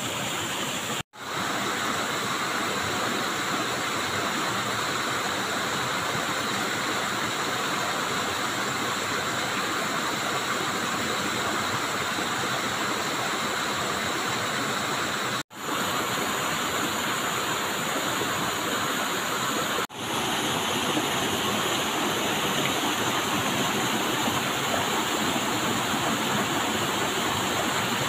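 Stream water rushing over rocks: a steady noise, cut by three very short gaps, one near the start, one about halfway and one about two-thirds in.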